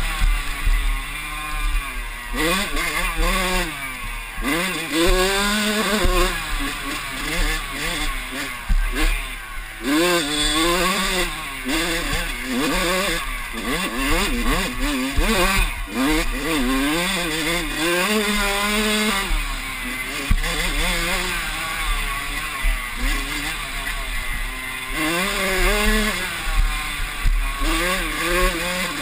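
Yamaha YZ85 two-stroke mini dirt bike engine heard from on board at racing pace, its pitch rising and falling over and over as the rider works the throttle and shifts. Steady wind rumble runs underneath.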